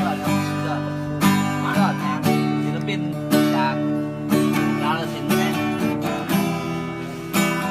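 Acoustic guitar strummed in full chords, with a strong strum about once a second and the chords ringing between strokes.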